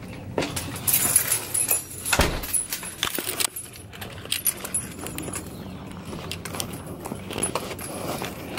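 Keys on a swinging lanyard jangling and clinking irregularly while someone walks on concrete, with a couple of louder knocks in the first few seconds.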